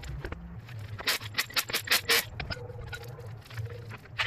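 A quick run of sharp metallic clicks and clinks, bunched between about one and two seconds in, over a low hum.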